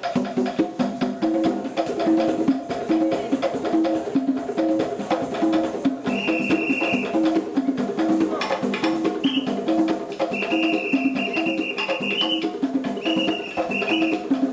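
Live African-style hand-drum ensemble playing a fast, steady rhythm of pitched drum strokes. From about six seconds in, a steady high tone is held in several long stretches over the drumming.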